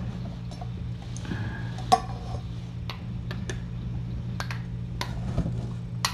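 Scattered light clicks and taps over a steady low electrical hum, with one louder click and a brief ring about two seconds in.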